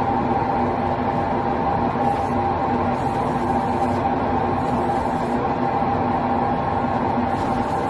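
Airbrush spraying tinted lacquer in four short hisses, each under a second to about a second long, over a steady, louder machine drone with a low hum.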